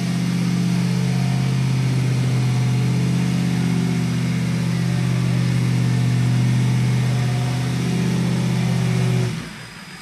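Off-road 4x4 truck's engine held at steady revs under load as it claws through a deep mud rut on a taut winch line; the revs drop off suddenly about nine seconds in.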